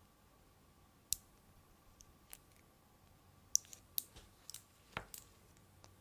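Small 5 mm magnet balls clicking against each other as fingers work on a sphere built from them: one sharp click about a second in, another a second later, then a quick run of clicks and taps near the end.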